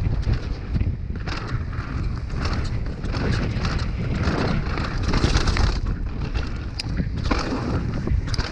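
Wind buffeting the microphone of a camera riding on a downhill mountain bike at speed, with the tyres rolling over dirt and roots in a steady rumble. The bike's chain and parts rattle and clack, with scattered sharp clicks and knocks.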